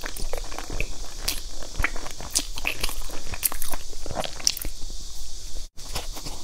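Close-miked eating sounds: biting into and chewing a cake, a quick run of sharp clicks and mouth smacks. The sound cuts out for an instant near the end.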